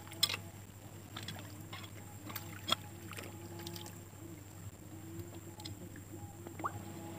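Scattered light taps and clicks of a metal crab hook and fingers against coral rock, with small splashes in a shallow tide pool as a crab is worked out from under a rock. A faint steady drone runs underneath.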